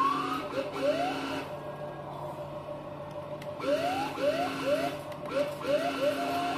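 Small electric motors of a Huina 1561 RC fire truck whining in short pulses, each rising in pitch as it spins up, with a steady hum underneath. There is a pause of about two seconds near the middle.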